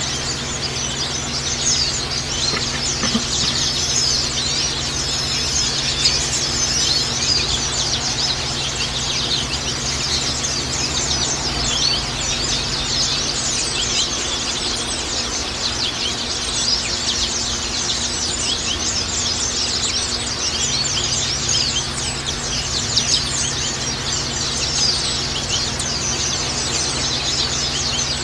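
Many Zosterops white-eyes (pleci) chirping and twittering at once, a dense, unbroken chatter of quick high calls, over a steady low hum.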